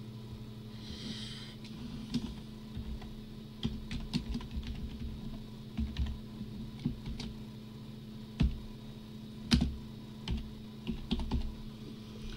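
Typing on a computer keyboard: irregular keystrokes, with a couple of louder strikes about two-thirds of the way through, over a steady low hum.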